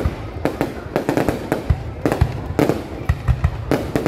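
Aerial fireworks bursting overhead: a rapid, continuous string of bangs and crackles, several a second.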